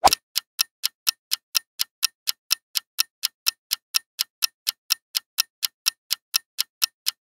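Ticking-clock sound effect running a quiz answer countdown: a steady train of short sharp ticks, about four a second.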